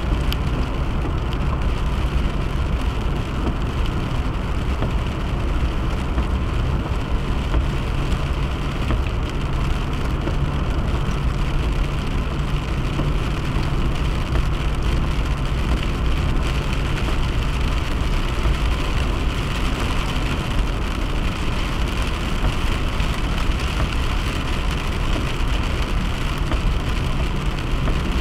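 Steady engine and road noise of a car driving at speed on a highway.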